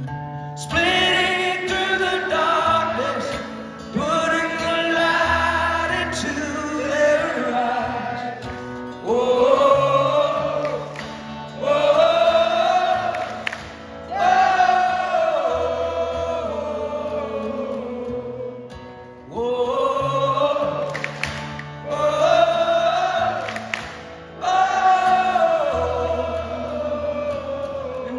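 Live solo performance: a male rock singer sings a slow song at the microphone and accompanies himself on acoustic guitar, in sung phrases a few seconds long with short breaks between them.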